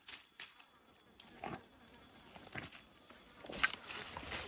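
A green bamboo cooking tube knocked several times, irregularly, to shake loose the cooked meat inside: sharp hollow knocks, the loudest near the end.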